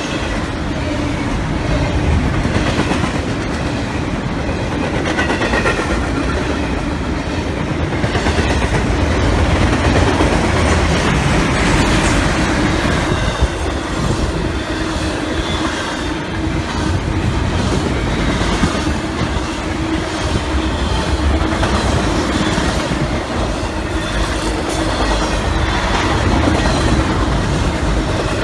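Freight train rolling past: a steady, loud rumble of cars on the rails with wheels clacking over rail joints and some faint wheel squeal.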